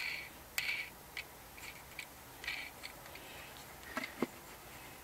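Irregular short clicks and light scrapes of a metal wing nut being worked onto a threaded stud by hand, with small knocks from the wooden parts being handled.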